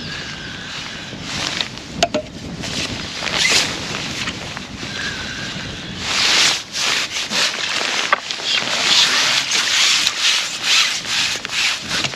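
Irregular rustling and rubbing handling noise close to the microphone, with a sharp knock about two seconds in, growing louder and busier about halfway through.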